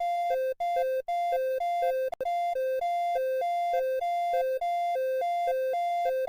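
Emergency alert system (EAS) alarm: a buzzy electronic two-tone signal switching back and forth between a lower and a higher pitch several times a second, with a few very brief dropouts.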